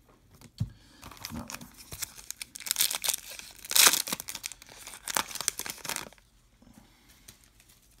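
A foil trading-card pack wrapper being torn open and crinkled in the hands: a run of rips and crackles, the loudest rip about four seconds in, dying away to faint rustling near the end.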